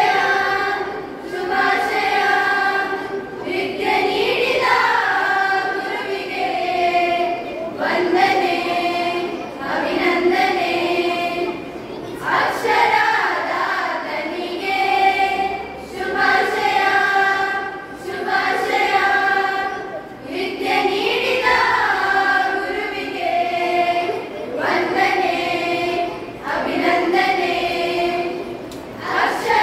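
A group of children singing together as a choir, in phrases of about two seconds with short breaks between them.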